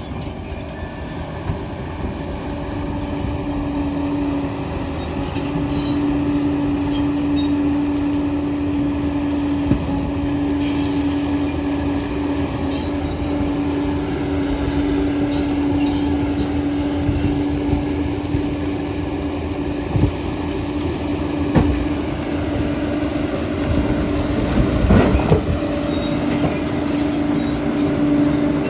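Liebherr 746 crawler dozer at work: its diesel engine running under load with a steady whine, its steel tracks squealing and clanking, and a few sharp knocks in the second half.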